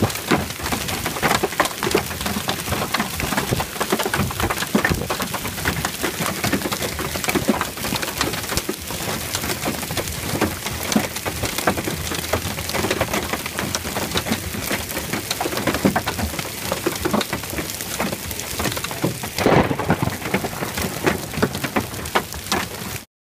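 Hail and rain pelting wet grass and standing water: a loud, dense clatter of many small impacts and splashes. The sound cuts off suddenly near the end.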